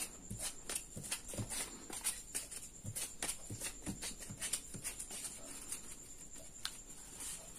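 Cut glitter-paper circles being picked up off a table and stacked by hand: faint, irregular light taps and clicks of paper on paper and on the tabletop.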